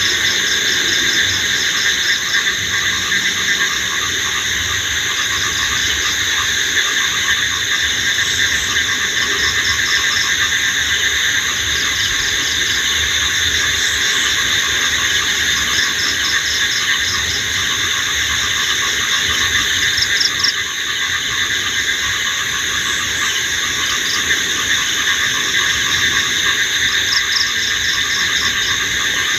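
Night insect chorus: crickets and other insects trilling steadily in several overlapping high pitches, with a fast pulsed chirping trill coming in and out every few seconds.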